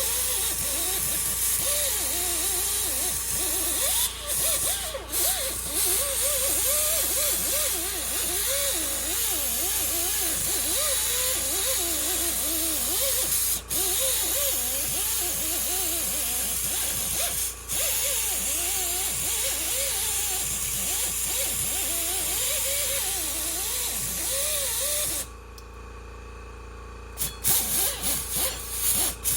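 Air-powered tool cleaning rust off the hub face of a car, running with a steady hiss and a wavering pitch as it is worked against the metal, with a few brief pauses. It stops about 25 seconds in, and a few short bursts of air follow near the end.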